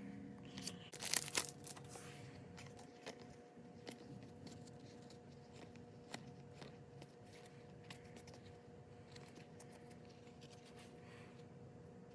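Trading cards being handled, with a short burst of crinkling, tearing noise about a second in, then faint scattered clicks of cards being sorted. A faint steady hum sits underneath.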